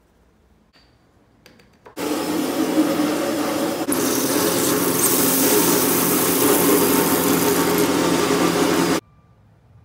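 Water rushing out of an opened outdoor hose spigot to relieve pressure in the supply line, a loud steady hiss and splash. It starts abruptly about two seconds in and cuts off abruptly near the end.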